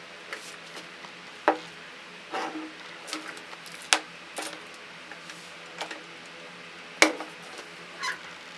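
Scattered clinks and knocks of glass and ice as a glass jar is set into a glass dish of ice water and a hair dryer is picked up; the sharpest knock comes about seven seconds in.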